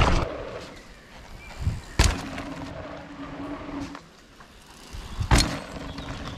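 Electric mountain bike riding on a dirt trail: the CYC X1 Pro Gen 2 mid-drive motor gives a steady whine over tyre and rolling noise. Two sharp loud bursts of noise break in, about two seconds in and again near the end.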